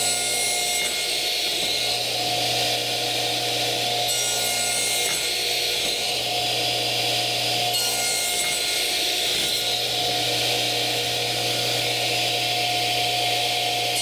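Radial arm saw running steadily while its blade makes repeated shallow cross passes through plywood, nibbling out a half-depth lap joint. The cutting noise swells roughly every four seconds as each pass is made, over the motor's constant hum.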